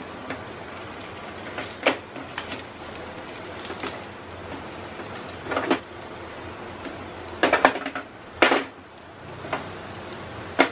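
Hot oil sizzling steadily in a non-stick frying pan as semolina-coated potato-and-pea patties are laid in to shallow fry, with several sharp clicks and taps against the pan.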